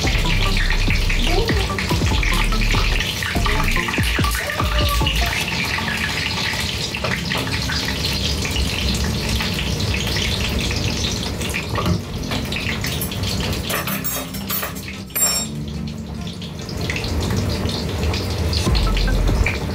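Frozen spring rolls deep-frying in hot oil, a steady crackling sizzle with spattering. It eases briefly about fifteen seconds in.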